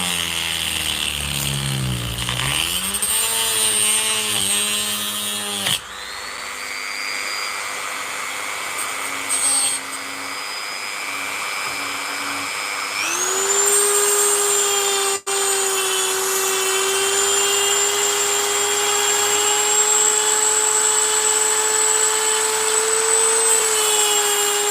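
A Dremel rotary tool running and cutting into the cells of a Milwaukee battery pack: a high motor whine that dips in pitch as it bogs under load in the first few seconds, then runs at a steady high pitch, with a few abrupt breaks in the sound.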